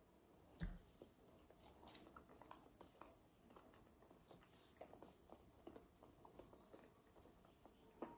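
Faint chewing and mouth clicks of someone eating a banana, with small crackles as the peel is pulled back. A soft thump about half a second in is the loudest sound.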